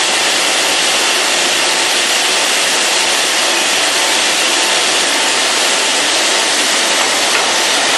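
MRS 340M multi-rip saw running, a loud, steady, even rushing noise with no breaks or changes.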